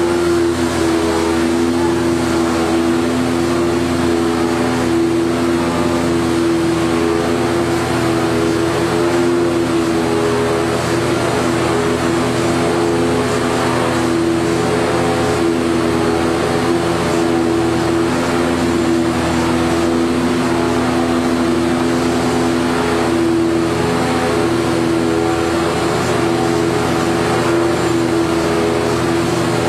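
Corrugated cardboard production line running: a steady machine hum with a few held tones over an even mechanical noise, unchanging throughout.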